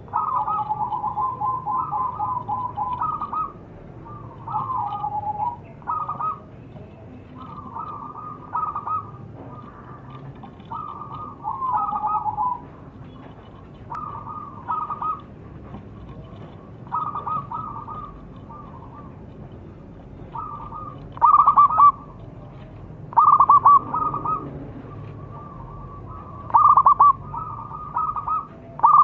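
Zebra dove (perkutut) cooing in repeated short trilling phrases, about a dozen in all, each roughly a second long with brief pauses between. Several phrases in the second half are louder and more clipped.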